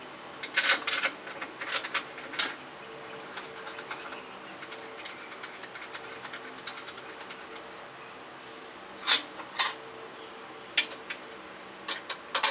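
Clamps clicking and knocking as they are fitted and tightened onto a table: a string of sharp, irregular clicks, with a cluster in the first couple of seconds and a louder pair about nine seconds in, over a steady low hum.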